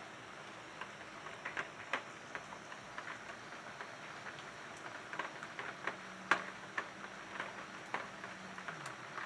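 Rain falling steadily, with irregular louder drops tapping on a surface. A faint low hum comes in about six seconds in, then drops in pitch and fades near the end.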